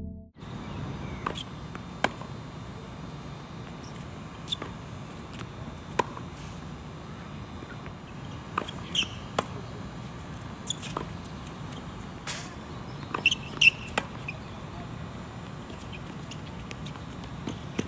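Tennis rally: a ball being struck by racquets and bouncing on the court, heard as sharp pops every second or two, with short high shoe squeaks on the court about halfway through.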